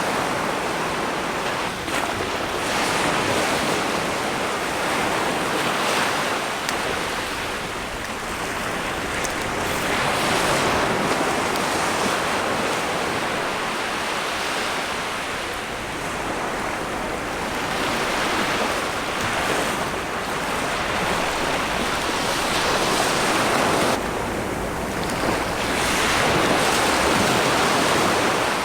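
Ocean waves breaking on a shore, the surf swelling and easing every several seconds, with wind on the microphone.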